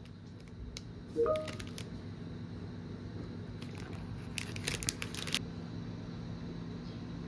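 Plastic ice cream bar wrapper being peeled open, crinkling and crackling in a dense run about four and a half seconds in, with a short squeak and a few clicks about a second in. A steady low hum sits underneath.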